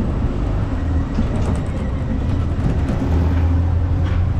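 A train running, with a steady low rumble and hum and a few faint clicks over it.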